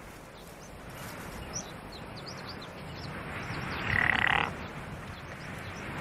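Leaves and twigs of a shrub rustling as a chamois buck rubs its head and horns against it to scent-mark. About four seconds in comes a short raspy sound of about half a second.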